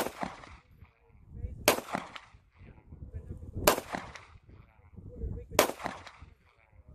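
A .45-calibre semi-automatic pistol fired four times in slow succession, about one shot every two seconds, each report trailing off in a short echo.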